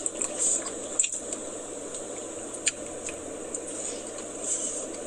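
Someone eating ice cream: a few sharp small clicks and soft wet mouth sounds over a steady background hum.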